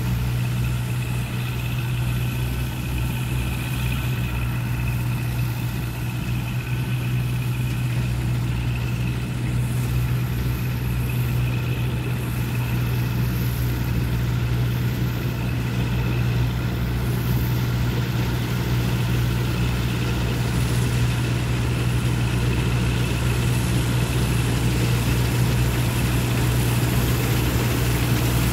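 Massey Ferguson 86 combine harvester running steadily as it harvests barley, a continuous low engine drone with a fainter high whine above it. It grows slightly louder as the machine comes closer near the end.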